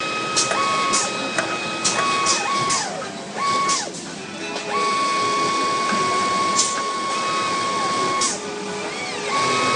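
Pegasus FS703P flatlock sewing machine stitching in several short runs and one longer run in the middle. Its motor whine glides up as it speeds up and down as it stops, with occasional sharp clicks.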